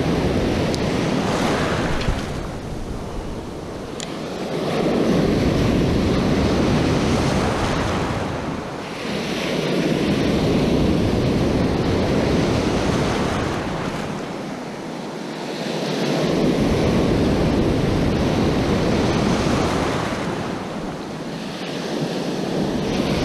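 Small surf waves breaking and washing up the beach, the rush of water rising and falling in swells about every five to six seconds.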